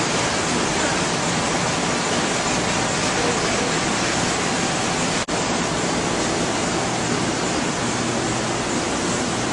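Steady, even hiss of loud background noise with no distinct tones, the constant din of the equipment-filled room, broken by a brief dropout about five seconds in.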